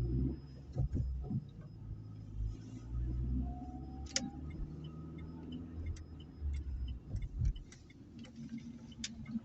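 Opel Meriva heard from inside the cabin while driving: a low rumble that swells and eases, with scattered irregular ticks and knocks. The car has a noise that the owner traces to the driver's-side rear wheel.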